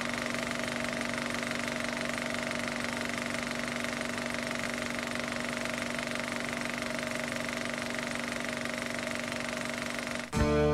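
Film projector running: a steady, rapid mechanical clatter of the film advancing, with an even hum underneath. Acoustic guitar music cuts in near the end.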